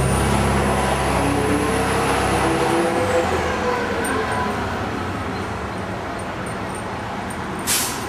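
A large motor vehicle passing on the street: a low engine rumble with a steady high whine, both fading away after about three seconds, then a short sharp hiss near the end.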